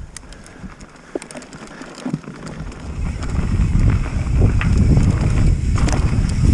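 Whyte T130C-RS mountain bike riding a dirt trail, its tyres rolling with scattered clicks and rattles from the bike. From about three seconds in, a loud low rumble of wind buffeting the microphone and tyre noise builds as the speed picks up.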